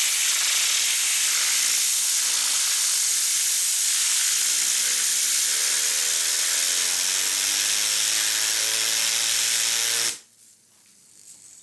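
Compressed air hissing from an air-compressor blow gun aimed at a hand-held fidget spinner. From about halfway through, the spinner's whir climbs slowly in pitch as it spins up. The air cuts off suddenly about ten seconds in.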